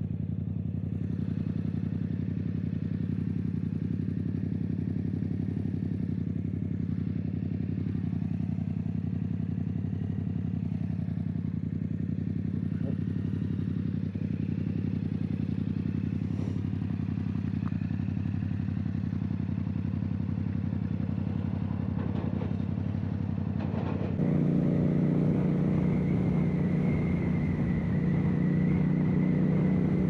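Yamaha Tracer 700's parallel-twin engine with an Akrapovic exhaust, ticking over steadily at idle with the bike parked. About 24 seconds in it cuts to the bike riding at a steady speed, louder, with a faint high whine over the engine.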